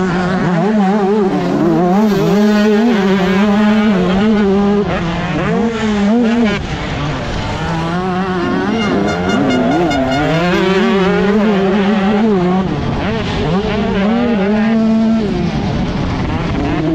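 125cc two-stroke motocross bike engine at race pace, its revs rising and falling over and over as the rider works the throttle and gears. About six and a half seconds in, the engine briefly drops off and then picks up again.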